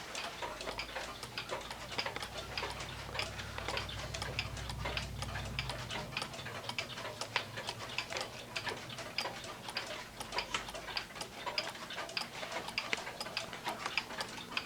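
One-day cuckoo clock's mechanical movement ticking steadily, an even run of tick-tock clicks from its escapement. The movement has been freshly cleaned and oiled and is running fine.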